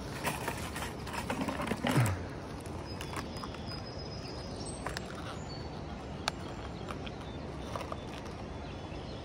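Steady rush of water from the rapids below a dam, with a few scattered knocks and rustles, the loudest about two seconds in, and a few faint high bird chirps.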